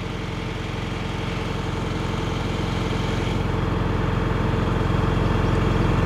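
Tractor engine running steadily, growing gradually louder.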